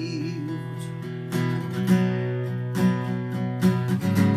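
Acoustic guitar strumming chords, with a sung word held over the first moment before the guitar carries on alone.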